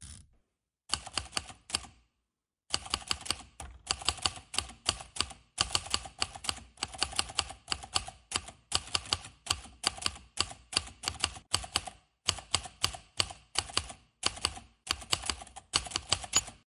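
Computer keyboard typing sound, rapid key clicks in runs, with a short pause about two seconds in. It stops just before the end.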